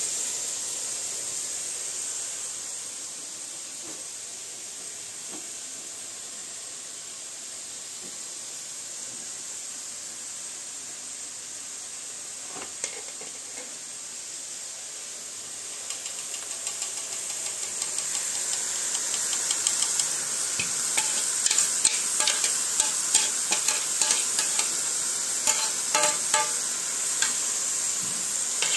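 A steady hiss from the gas stove with a pot on the boil. From about sixteen seconds in, a frying pan of soy chunks and green beans sizzles, with crackles and clicks that grow louder and denser.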